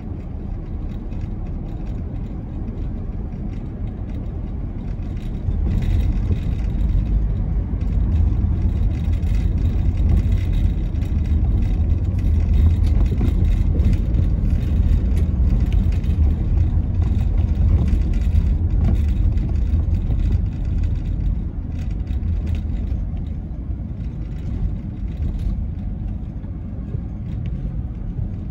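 Car travelling at speed on an expressway: a steady low rumble of tyres and engine. It grows louder about five seconds in and eases slightly near the end.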